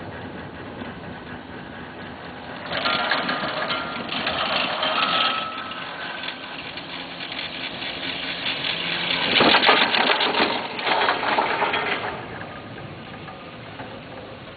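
1996 Poma Italia detachable quad chairlift in motion: two stretches of rapid mechanical clatter, one about three seconds in and a louder one around ten seconds in, as the haul rope and chair grip roll over a tower's sheave wheels.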